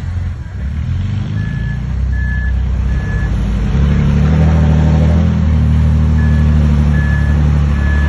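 A dump truck reversing: its backup alarm beeps three times, pauses, then beeps three more times, over the truck's diesel engine running, which grows louder about four seconds in.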